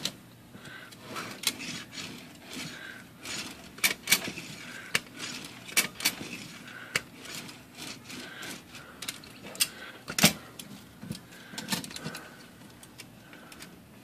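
Royal portable typewriter's carriage being moved by hand, giving irregular sharp metallic clicks and clacks from the carriage and escapement. This is a test of the freshly rebuilt mainspring's tension.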